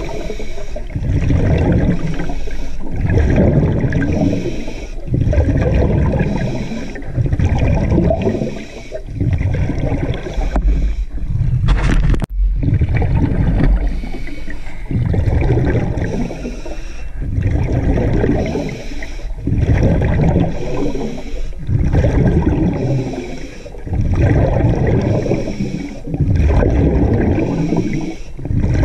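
Underwater water noise at the camera: a low rushing that surges and eases about once a second, with one sharp click about twelve seconds in.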